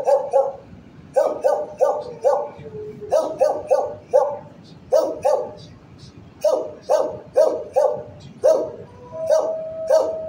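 Dogs in shelter kennels barking in quick runs of three or four, one run every second or so. About nine seconds in, a dog's long held howl begins under the barks.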